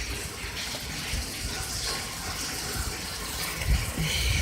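Steady rain falling with water gushing and running off. There are a few low thumps near the end.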